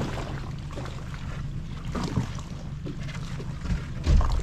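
Outboard motor of a small aluminium boat idling steadily as the boat creeps toward a crab pot float, with a loud low thump about four seconds in.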